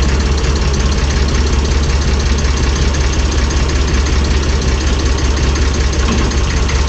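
Massey Ferguson 35 tractor engine running steadily.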